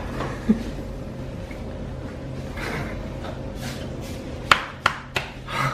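Three quick sharp cracks of joints being manipulated by a barber, about a third of a second apart near the end, the first the loudest, over a steady low hum.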